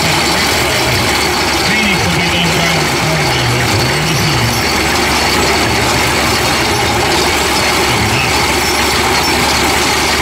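Horse-powered burr mill grinding shelled corn into meal: a steady grinding noise, driven through a tumbling rod.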